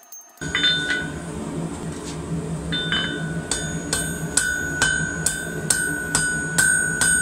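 Hand hammer striking red-hot rebar on a steel anvil to draw out a tapered tip, each blow leaving a clear high ring from the anvil. A few scattered blows, then a steady run of about two blows a second over a low steady rumble, stopping abruptly near the end.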